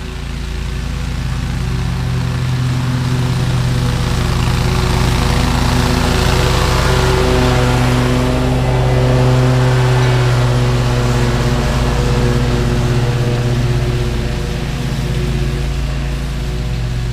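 Toro Grandstand stand-on mower running at mowing speed, cutting grass. It grows louder as it approaches, passes close by about halfway through, then fades somewhat as it moves away.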